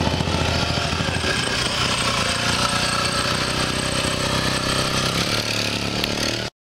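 Vintage motorcycle engine running steadily, cutting off suddenly near the end.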